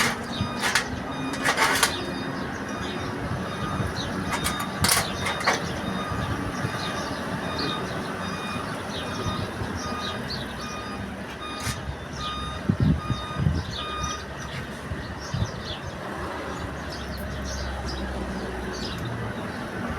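A vehicle's reversing alarm beeping steadily on and off, with scattered sharp metal knocks and clatter over a busy background.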